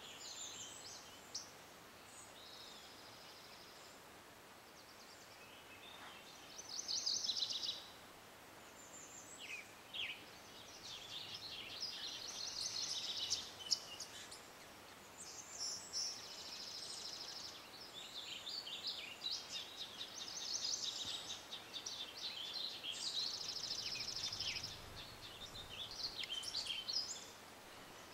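Songbirds singing: quick trilled and chirped phrases, sparse for the first few seconds and then coming almost without a break from about six seconds in, over a faint steady hiss.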